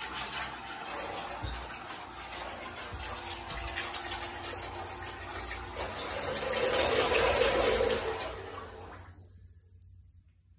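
Bathtub water churning and splashing from the running propellers of a scale Wet Nellie model submarine. The rush swells about seven seconds in, then dies away near the end.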